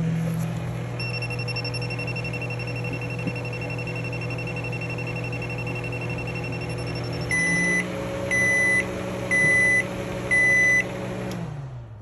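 Samsung microwave oven running with a steady electrical hum and a thin high whine, then four beeps about a second apart as the cycle ends, and the hum winds down and stops near the end.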